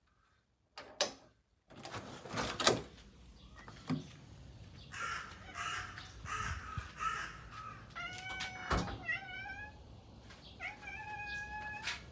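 Door lock clicking and the front door opening with a loud clunk, then a crow cawing four times, then a cat meowing twice near the end.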